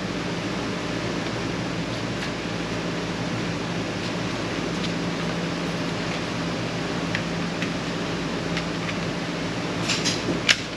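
Steady hum of a ventilation fan, with a few light clicks near the end.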